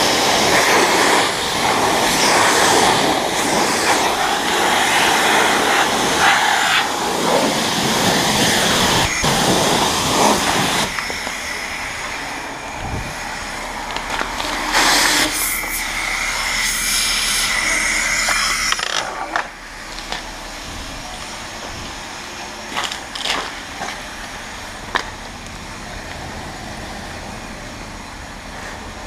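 Car wash pressure wand spraying water onto a bicycle: a loud, steady hiss that cuts off about eleven seconds in. This is followed by a quieter stretch with a low hum and a few short knocks.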